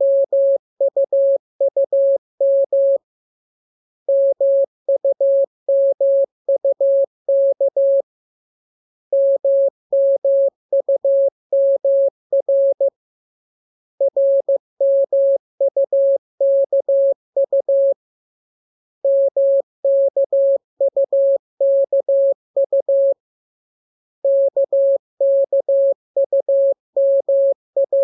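Morse code sent as a single steady mid-pitched beep keyed on and off in dots and dashes. The characters come in groups of about four seconds, with a pause of about a second between groups.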